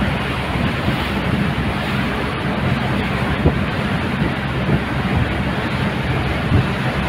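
Wind buffeting the microphone and water rushing past the hull of a river cruise boat under way, over a low, steady engine drone.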